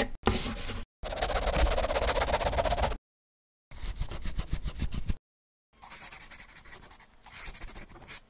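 Pencil scratching and scribbling on paper in several separate runs of quick strokes, with short silences between them. The longest and loudest run comes about a second in.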